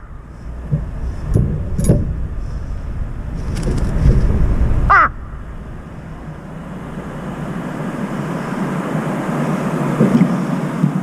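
A crow gives one short caw just before five seconds in, over a steady low hum of traffic from the road below.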